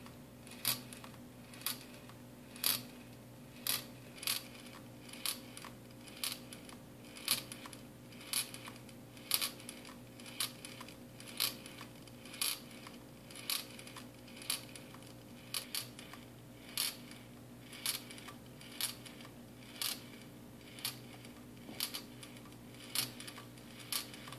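Glass marbles rolling and clinking against the glass of a marble Stirling engine's test tube as the running engine rocks it back and forth, about two sharp clinks a second in a steady rhythm.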